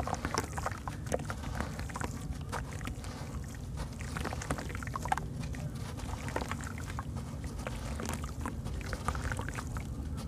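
Wet white sand-cement block crumbled by hand over a basin of water: many small crisp crackles and gritty crumbling as sand and pieces fall and splash into the water, over a steady low rumble.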